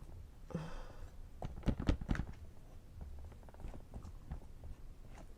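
Close-miked eating and handling sounds: scattered small knocks and clicks from food and utensils, with a cluster of heavier bumps about two seconds in.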